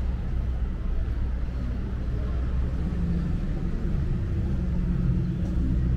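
Low, steady rumble of a motor vehicle engine running close by in street traffic.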